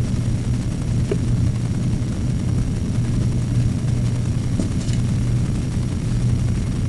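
A steady low drone from a running motor or engine, with a couple of faint clicks.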